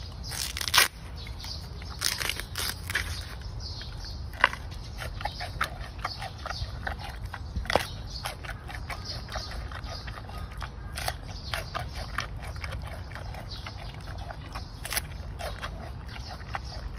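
Giant panda biting and chewing a fresh bamboo shoot: irregular crisp crunches and cracks of the fibrous shoot breaking between its teeth, the loudest about a second in.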